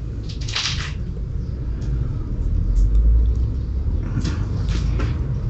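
Low rumble and rustling from a phone camera being handled and moved, with a few short scuffs, as it is set up over the motorcycle.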